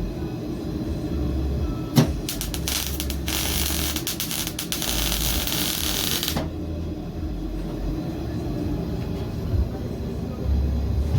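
MIG welding arc: a few sharp crackles about two seconds in, then a steady frying hiss for about three seconds that cuts off suddenly when the trigger is released. A low rumble runs underneath throughout.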